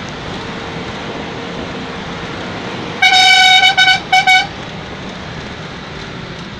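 A vehicle horn honks about halfway through: one long blast followed by a quick run of short toots. Under it runs the steady engine and road noise of a vehicle on the move, heard from inside the cabin.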